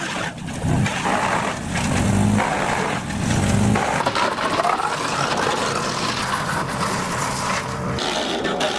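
Large wood chipper chipping a pine trunk: its engine running hard under load, with the cracking and grinding of the wood being fed through. The engine's pitch swells and eases, and a rising whine comes in around the middle.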